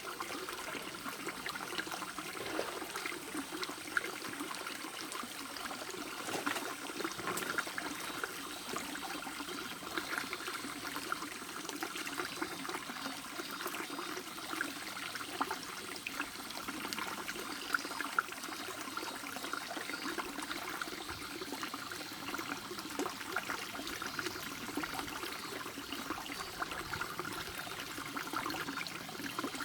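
Shallow stream babbling steadily, a dense run of small splashes and gurgles as the water runs over stones.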